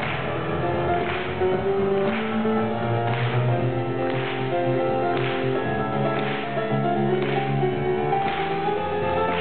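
A live rock band playing an instrumental passage of the song with no vocals: steady sustained chords over a moving bass line, with a crisp hit about once a second.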